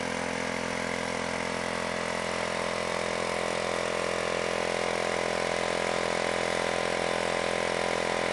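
Honda SH scooter's single-cylinder four-stroke engine running steadily at idle through an ENDY oval aftermarket exhaust silencer, growing slightly louder in the second half.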